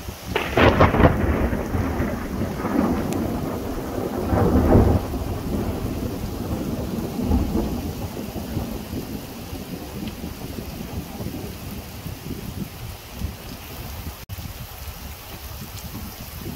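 A thunderclap about half a second in, rolling on with a second peak a few seconds later and dying away, over steady heavy rain.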